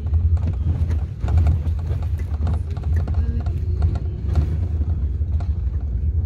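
Vehicle cabin noise while driving on a rough, rocky mountain road: a steady low engine and road drone with frequent rattles and knocks from the bumpy surface.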